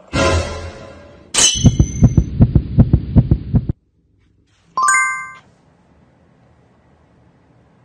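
Edited-in sound effects: about two seconds of rapid low thumps, some five a second, opening with a high ping. Then a single ringing ding, and after that only faint hiss.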